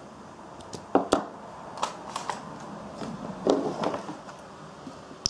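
Small metal flashlights handled in the hands: a few sharp clicks about a second in, a couple more around two seconds, and a cluster of clicking and rubbing a little past halfway.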